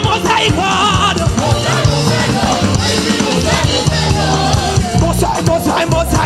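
Live upbeat praise band music with drum kit, bass and keyboard, and voices singing over it.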